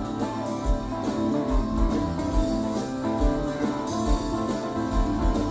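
Music: a live rock band recording with guitar over a steady beat.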